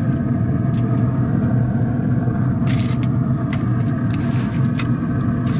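Steady hum of a Traeger pellet grill running, its fan droning without change. Metal tongs click sharply against the grill grate several times in the second half as chicken pieces are set down.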